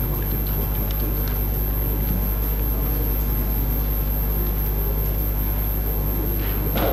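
Steady low hum of a large hall's room tone, with a brief louder sound just before the end.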